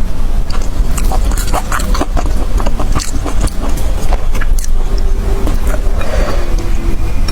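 An animal chewing and biting food, with many quick irregular clicks over a steady low rumble.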